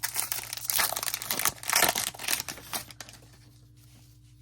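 Wrapper of a hockey trading-card pack being torn open and crinkled, with the loudest crackles in the first two seconds, stopping about three seconds in.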